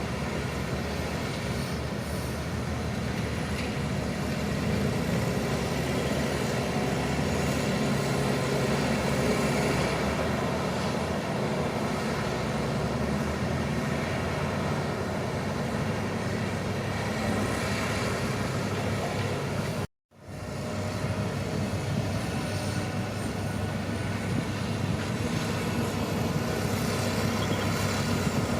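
Crawler bulldozer's diesel engine running steadily, with a brief dropout about twenty seconds in where the sound cuts out for a moment and comes back.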